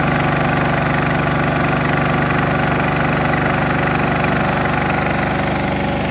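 The engine of a ride-on paver-joint weed-cleaning machine runs steadily while its rotating front cleaning head scrapes weeds and dirt from between paving stones, giving a continuous gritty scraping over the engine's hum.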